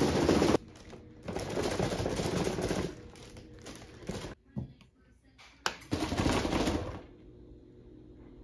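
Wrapping paper crinkling and rustling on a gift box as it is handled, in three bursts, with a few sharp clicks between the second and third.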